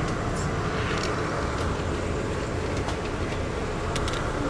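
Steady rumble of a passenger rail car rolling along the track, heard from inside the car, with a few sharp clicks and rattles.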